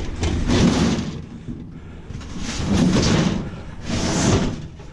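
Scrap items being slid and scraped into a truck bed during loading: three rough sliding scrapes, the longest at the start.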